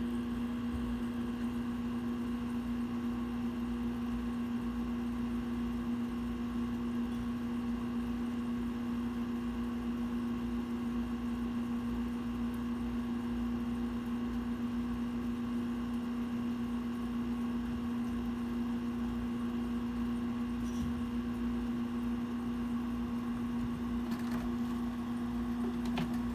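A steady machine hum with one strong low tone and fainter tones above it, with a few faint clicks near the end.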